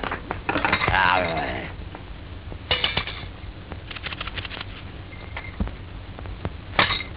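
Old cartoon soundtrack sound effects: scattered clicks and clinks like dishes, with a short warbling sound about a second in and brief clattering bursts near the three-second mark and near the end.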